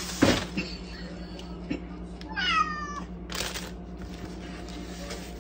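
Domestic cat meowing once, about halfway through: a short call that falls in pitch. A couple of brief rustling bursts come around it, the loudest near the start.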